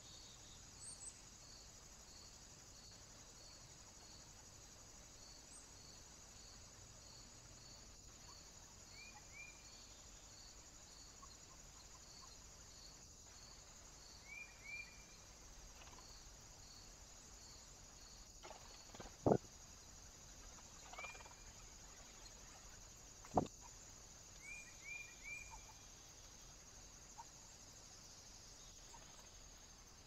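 Faint outdoor ambience with a steady high insect hiss and a regular high chirp about twice a second through the first half. Short bird chirps come in twos and threes four times, and two sharp knocks a few seconds apart are the loudest sounds.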